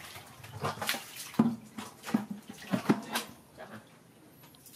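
Plastic bucket being handled and stood upright on a wet concrete floor: a series of irregular knocks with splashing water, dying away in the last second.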